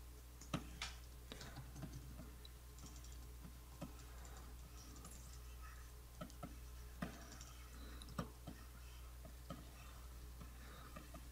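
Faint, irregular clicks of computer keys as Photoshop shortcuts are pressed, with a few sharper clicks spread through, over a steady low hum.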